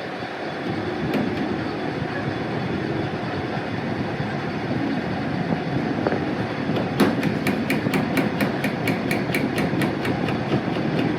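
Rapid, evenly spaced hammer blows on metal, about four or five a second, starting about two-thirds of the way in. Under them runs a steady low noise.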